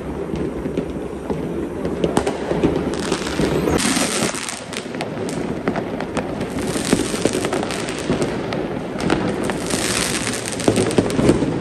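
Many fireworks going off across the neighbourhood at once: a continuous barrage of bangs and crackles, with dense bursts of crackling about three to four, seven and ten seconds in.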